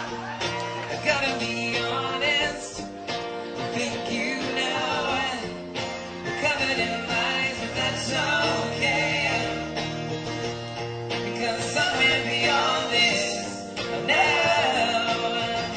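Live music: a strummed acoustic guitar with a man singing over it.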